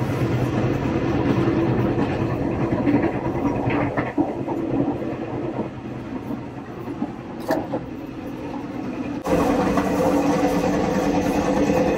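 Train running, a steady rumble heard from inside the carriage, with two sharp clicks near the middle. It gets suddenly louder about nine seconds in.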